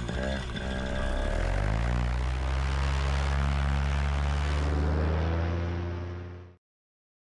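Paramotor two-stroke engine and propeller throttling up, the pitch rising over about two seconds, then running steady at high power. The sound cuts off abruptly about six and a half seconds in.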